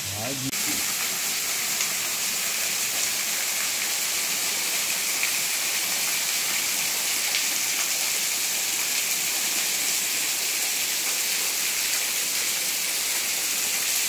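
Steady rush of water falling at a waterfall, an even hiss that holds without a break.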